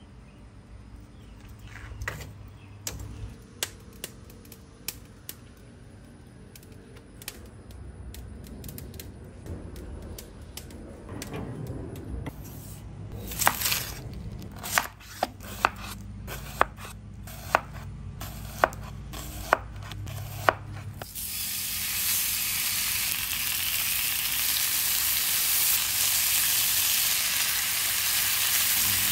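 A knife chopping on a cutting board, with sharp knocks about once a second, then bacon sizzling in a hot skillet with a steady hiss for the last several seconds.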